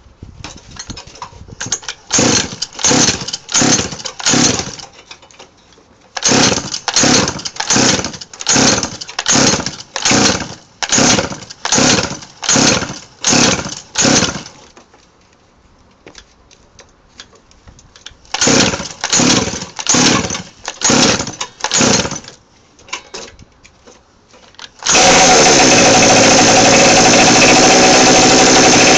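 Pocket bike's small two-stroke engine being pull-started: three bouts of rapid cranking on the recoil starter with pauses between them. About 25 seconds in it catches and runs at a steady, high-pitched buzz.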